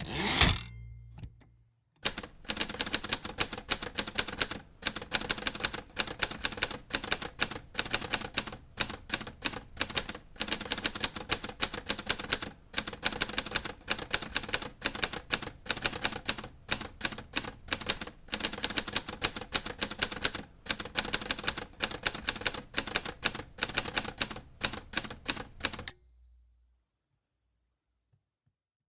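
Typewriter being typed on: a loud sliding clatter at the start, like the carriage being returned, then a fast, uneven run of sharp keystrokes for about 24 seconds. The keystrokes stop with a single bell ding near the end, the typewriter's end-of-line warning.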